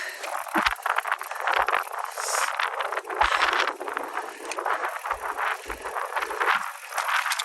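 Mountain bike riding down a rough, rocky trail: continuous tyre and trail noise, with the bike rattling and several irregular knocks as it hits rocks.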